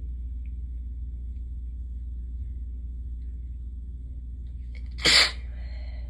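One sharp human sneeze about five seconds in, part of a sneezing fit, trailing off briefly into the voice. A steady low hum runs underneath.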